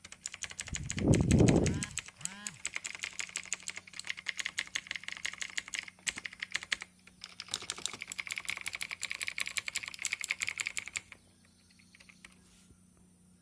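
Rapid typing on a TVS Gold Bharat mechanical keyboard, its Long Hua clone switches (made to sound like Cherry MX Blues) clicking in a dense stream. There is a brief louder low sound about a second in, and the typing stops about eleven seconds in.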